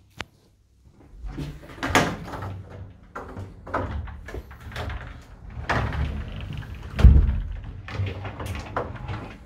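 Wardrobe doors being opened and closed by hand: a sharp click just after the start, then a run of knocks, bumps and rubbing, the loudest a heavy thump about seven seconds in.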